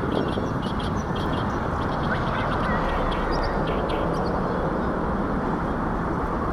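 Ducks calling with short, scattered notes over a steady rushing noise.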